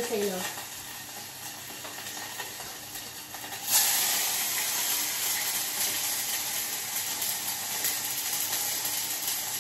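Food sizzling in hot oil in a frying pan, the sizzle jumping suddenly louder about four seconds in and holding steady after.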